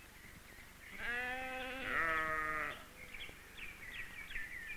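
Sheep bleating: two long, overlapping bleats start about a second in, followed by a run of short, high chirps.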